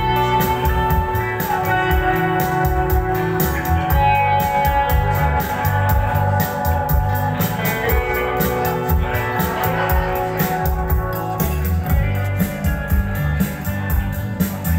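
A guitar-and-drums duo playing live: guitar holding long ringing notes over a drum kit keeping a fast, busy beat.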